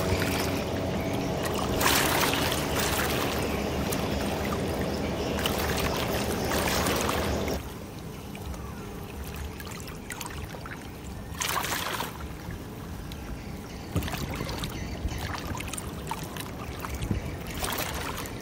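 Water rushing and splashing in the bow wave of a large container ship passing close by, over a low steady rumble. It grows quieter about halfway through, with a few brief louder surges.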